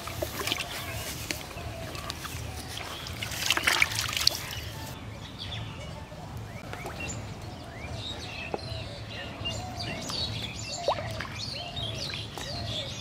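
Water splashing and sloshing in a plastic bucket as a caught fish is put in and thrashes, loudest about three and a half seconds in. After about five seconds this gives way to birds chirping repeatedly.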